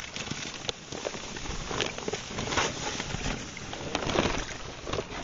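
Wet masonry mortar being stirred in a plastic bucket: an uneven run of wet scrapes and slaps.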